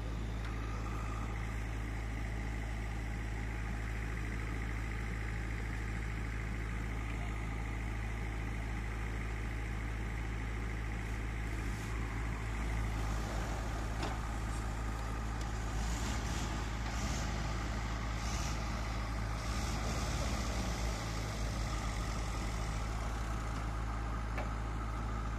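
Diesel engines of a JCB backhoe loader and a tractor running steadily. From about halfway through the engine sound grows a little louder, with short bursts of hiss.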